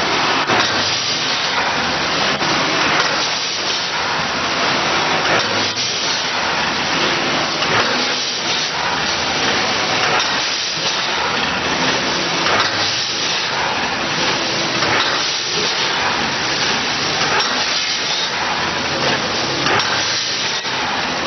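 Vertical form-fill-seal packaging machine with a weigher on top, running: a steady, loud hissing machine noise with a faint pulse repeating every second or two as it cycles.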